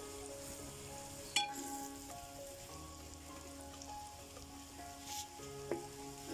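Shallots, coconut pieces, ginger-garlic and freshly added crushed dried red chillies sizzling steadily in hot oil, stirred with a perforated metal spoon. There is a sharp click about a second and a half in, and a couple of lighter clicks near the end.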